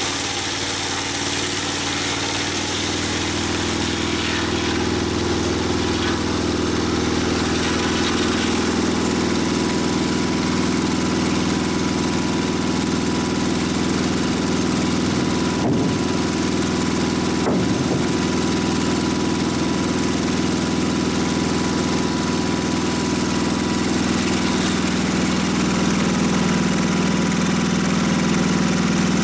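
Mobile Dimension sawmill's engine running steadily, its note shifting slightly about two seconds in.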